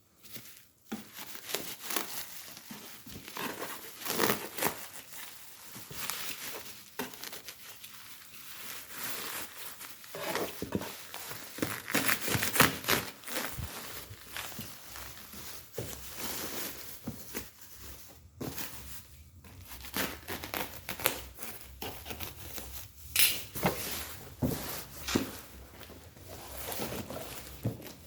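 Packaging being handled during an unboxing: irregular crinkling and rustling with some tearing, in uneven bursts, a few of them louder.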